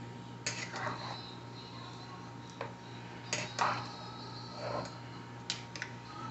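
Faint, irregular light clinks and taps of a spoon against a cooking pot, about eight in all, over a steady low hum.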